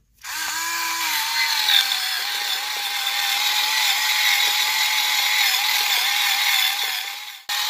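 Electric pepper-grinder motor, coupled by a 3D-printed adapter to a hand-cranked ceramic burr coffee grinder, turning the burr and grinding coffee. It makes a steady motor whine over a grinding hiss, dropping slightly in pitch after the first second. It starts just after the beginning and cuts off shortly before the end.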